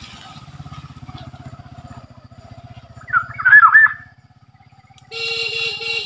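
Black-naped oriole giving loud fluty whistled calls for about a second, about three seconds in, followed near the end by a harsher nasal call. A low pulsing engine hum runs underneath.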